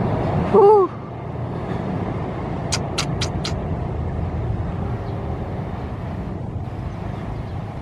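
A passenger train's wheels rumbling steadily over a steel truss railway bridge as the train moves away, slowly fading. A brief loud pitched sound comes about half a second in, and four quick sharp clicks come around three seconds in.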